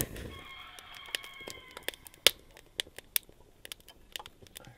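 Rocket stove and cast iron waffle iron cooking: scattered sharp crackles and pops from the wood fire and the cooking batter, with a steady high whistling tone lasting about a second and a half near the start.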